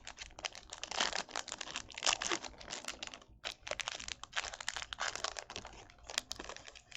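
Foil wrapper of a baseball card pack being torn open and crinkled, in three stretches of dense crackling with short pauses between them.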